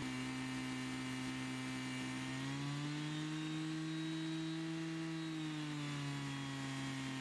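Small petrol engine of a Cembre LD-1P rail drill running steadily while the drill cuts a hole through the rail. The engine's pitch rises slightly about two and a half seconds in and settles back down near six seconds.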